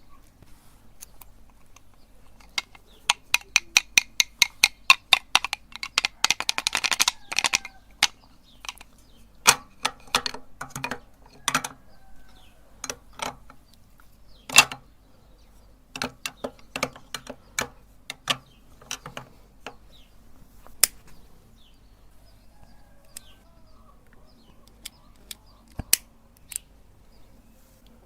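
Meat grinder crushing a wax candle: a fast, even run of sharp clicks, about five a second, then scattered single cracks and clicks as the wax breaks up.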